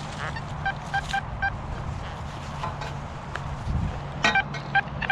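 XP Deus metal detector giving clusters of short, pitched beeps, a "womp, womp, womp", as the X35 coil is swept over a large shallow target. It is overloading, which the detectorist takes for a pop can.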